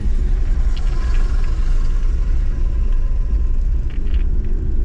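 Steady engine and road rumble heard inside the cab of a small manual-transmission truck as it drives along.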